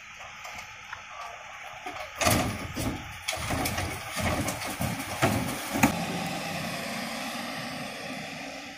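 Recycling tipped from a wheelie bin into the rear hopper of a Faun Variopress refuse truck: a run of loud crashes and clatter of glass, cans and plastic from about two seconds in until about six seconds, then the truck's engine running steadily, fading near the end.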